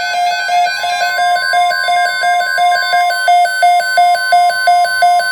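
NOAA Weather Radio's steady 1050 Hz warning alarm tone, which announces a tornado watch broadcast, sounding together with a fast, evenly pulsing electronic alert beep from the weather radio receiver.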